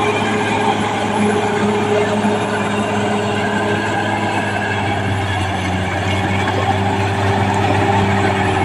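Caterpillar D6R crawler bulldozer's diesel engine running at a steady pitch, with mechanical clatter over it.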